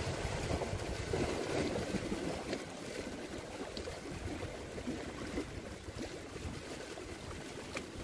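Sea waves washing against shoreline rocks, a steady rushing noise, with wind rumbling on the microphone.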